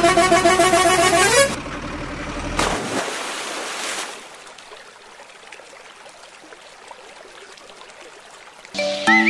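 A truck horn blares for about a second and a half, its pitch bending upward as it cuts off, over a low engine rumble. Then comes a splash as a toy dump truck tumbles into shallow water, followed by faint water sounds.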